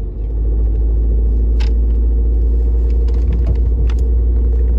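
Steady low rumble of a car driving at low city speed, heard inside the cabin: road and engine noise, with a few light clicks.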